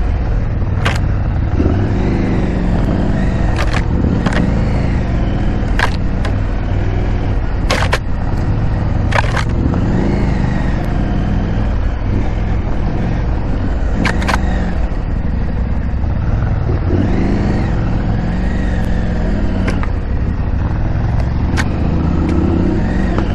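KTM 890 Adventure R's parallel-twin engine running at low revs off-road, its note rising and falling a few times with the throttle over a steady low rumble. Sharp clicks or knocks come about eight times at irregular intervals.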